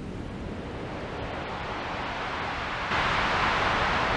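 Synthesizer noise texture: a low rumbling noise bed under a hiss that slowly builds, then swells suddenly brighter and louder about three seconds in, like surf or wind.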